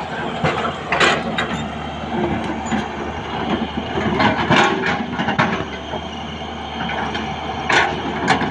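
Hyundai 210 crawler excavator working: its diesel engine running steadily while the steel bucket scrapes and knocks through soil and rocks, with sharp clanks about a second in, around four and a half seconds in, and near the end.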